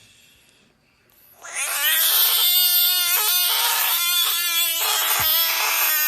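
An animal's long, drawn-out call, starting about a second and a half in and holding one steady pitch for over four seconds, with two brief breaks.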